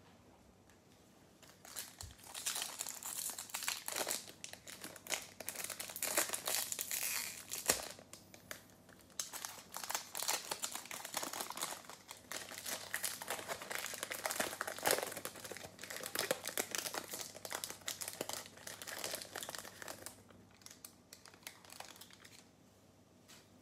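Foil wrapper of a Topps Chrome baseball card pack crinkling and tearing as it is opened and the cards are pulled out. The crackling starts about two seconds in, eases briefly near the middle, and trails off near the end.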